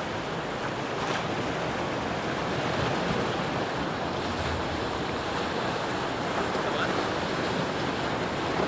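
Ocean surf washing steadily against a rock breakwater, with wind buffeting the microphone.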